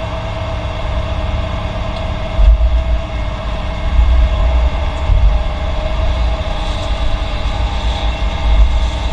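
Heavy earthmoving machinery running: a deep, uneven diesel rumble with a steady whine held over it.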